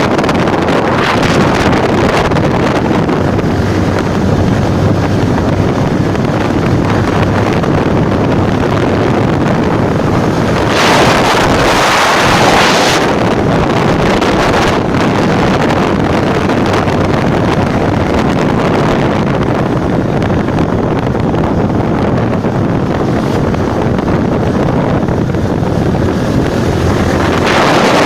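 Heavy wind noise on the microphone over a steady motor hum, with a louder gust lasting about two seconds, a little past the third of the way in.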